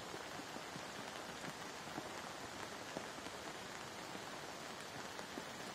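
Rain falling steadily on woodland trees and leaf litter: a constant hiss dotted with many small drop ticks.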